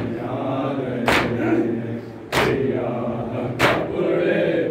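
Group of men chanting a Shia nauha in unison, kept in time by collective chest-beating (matam): a sharp slap about every second and a quarter, three in all.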